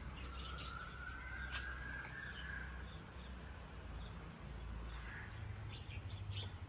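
Birds calling: short high chirps scattered throughout, and a long drawn-out call that rises slightly over the first couple of seconds, above a low steady rumble.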